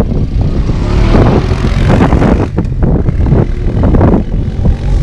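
Strong wind buffeting the microphone: a loud, irregular low rumble that surges and dips.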